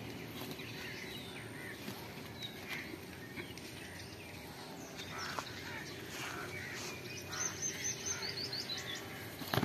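Rural outdoor ambience with a steady low background noise and small birds chirping, including a quick run of high chirps about seven seconds in.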